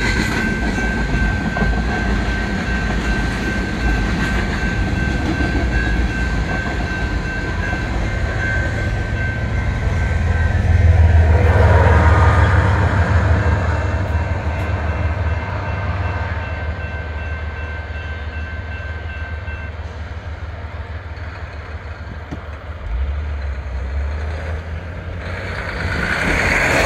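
A BNSF freight train of loaded covered hopper grain cars rolls past with steady wheel-on-rail rolling noise and thin high ringing tones. About halfway through, a BNSF diesel locomotive at the tail of the train passes with a deep engine rumble, then the sound of the train fades as it moves away. Near the end there is a louder rush of noise.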